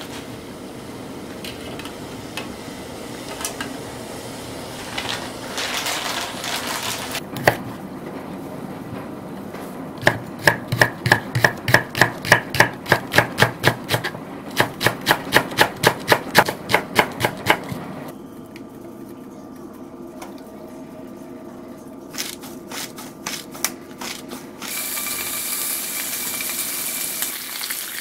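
Water boiling in a saucepan, then a kitchen knife chopping green onions on a wooden cutting board in quick even strikes, about three to four a second, with a short pause partway. Near the end, pork belly starts sizzling in a frying pan.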